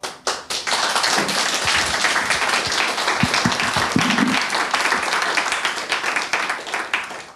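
Audience applauding: many hands clapping together, starting about half a second in, holding steady and dying away near the end.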